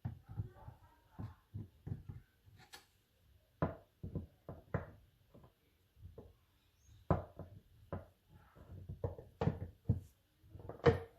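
Irregular knocks and clicks of transaxle parts being handled and set down during a teardown, with a few louder knocks in the second half.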